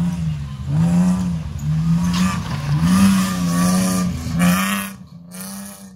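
A BMW 7 Series rally car driving past on a dirt course, its engine revving up and down several times as the throttle is worked, then fading away near the end.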